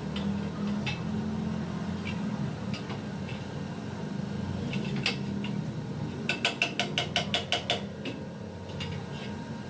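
Steel being struck in a fast run of about ten ringing metallic taps, about seven a second, over a steady low hum, with a few scattered clinks of metal before it.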